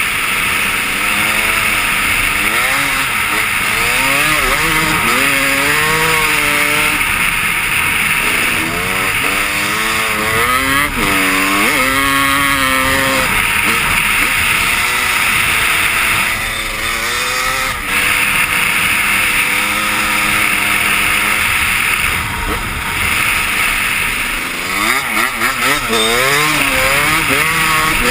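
Honda CR250 two-stroke dirt bike engine being ridden hard, its pitch rising and falling again and again as it is revved and backed off, with a steady hiss underneath.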